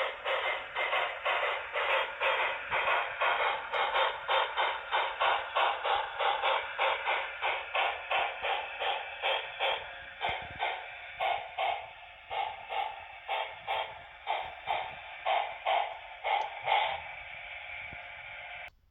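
Sound decoder of an HO scale Broadway Limited Imports PRR T1 duplex steam locomotive model playing steam exhaust chuffs through its onboard speaker. The chuffs come about three a second and slow to about two a second as the locomotive sound winds down. Near the end a steady hiss takes over, then the sound cuts off abruptly.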